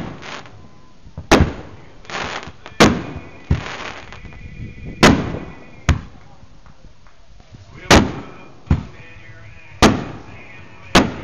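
Aerial fireworks going off one after another: about ten sharp bangs, roughly one a second, each followed by a brief crackle as the shells burst.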